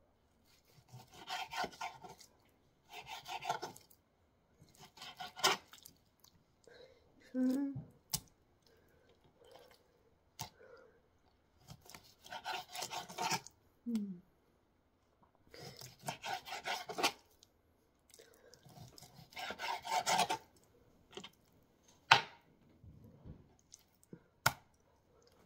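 Knife sawing through raw chicken breast on a cutting board, in repeated strokes of a second or two each, with a few sharp taps of the blade against the board; one tap near the end is the loudest sound.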